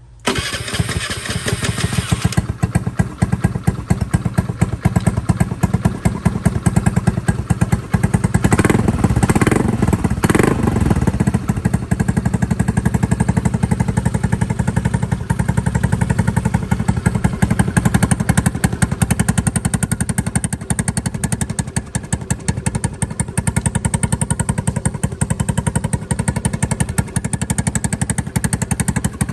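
Honda Navi's 109cc single-cylinder four-stroke engine starting up and settling into a steady, fast-pulsing idle. There are two short blips of the throttle about nine and ten seconds in.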